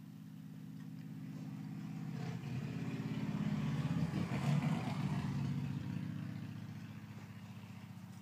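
A motor vehicle's engine droning past, growing louder to a peak about halfway through and then fading away.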